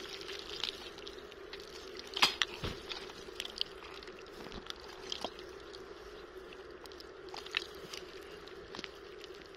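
Wet mud and muddy water squelching and sloshing around an arm working deep in a crab burrow, in scattered short wet bursts, the loudest about two seconds in. A steady low hum runs underneath.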